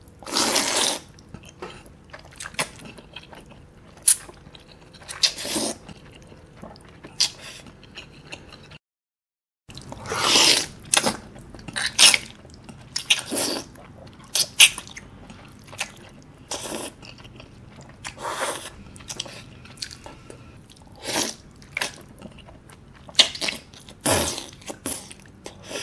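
Close-up eating sounds of jjajangmyeon black bean noodles: repeated wet slurps as strands are sucked in from chopsticks, with chewing between them. The sound cuts out completely for under a second about nine seconds in.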